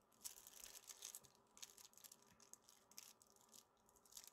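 Near silence: quiet room tone with faint, scattered high-pitched crackling.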